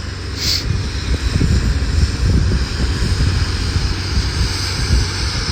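Heavy demolition machinery running, a steady low rumble, with a short hiss about half a second in.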